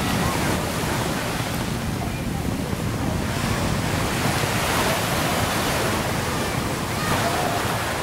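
Sea waves washing on the shore with a steady rushing noise, and wind buffeting the microphone.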